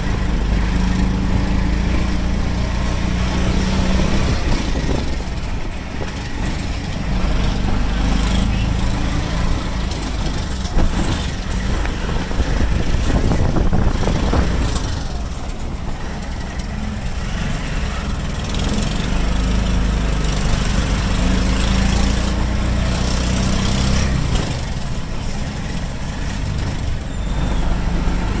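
Auto-rickshaw engine running while riding, heard from inside the passenger cabin: a steady low engine hum with road rattle, easing off and picking up again a few times as it slows and speeds up.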